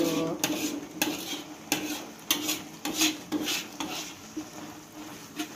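Spatula scraping and stirring thick spice paste around a wok in repeated strokes, about one to two a second, over a steady low hum. The wet-ground rendang paste is being cooked down over high heat, without oil yet, until it dries out.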